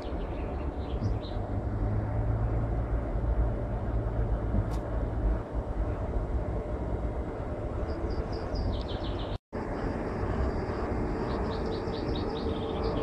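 A red NSB electric multiple-unit passenger train moving slowly along the station track, giving a steady low rumble of running gear and wheels on rail. Near the end a quick run of high chirps joins in. The sound cuts out completely for an instant about two-thirds of the way through.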